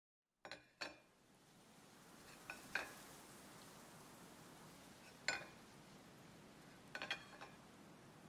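A plate and dishes clinking on a tabletop: scattered light clinks and knocks, the sharpest about five seconds in as the plate is set down, and a quick run of clinks around seven seconds.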